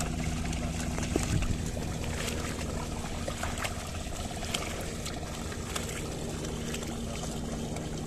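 Water and mud sloshing and splashing as a pair of oxen drag a wooden ladder leveller through a flooded paddy field, with scattered small splashes from hooves and feet, over a steady low hum.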